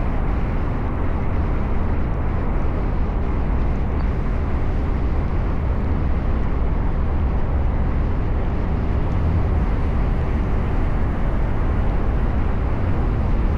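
A car driving at a steady speed: an even, unbroken rumble of road and wind noise, heaviest in the deep low end.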